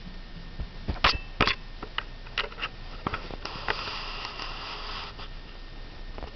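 A kitten playing: a string of light taps and knocks, seven or so, followed a little past halfway by about a second and a half of rustling.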